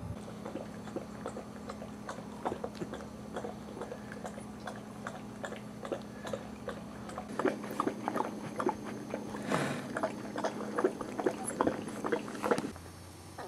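Young Boxer puppies mouthing and chewing on each other: a run of small wet smacking and clicking sounds that come faster and louder in the second half, with a brief louder rustle about ten seconds in. A steady low hum runs underneath and stops shortly before the end.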